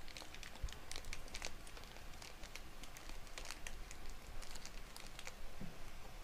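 Thin clear plastic wrapping crinkling in short, irregular crackles as a small HEPA filter is unwrapped by hand.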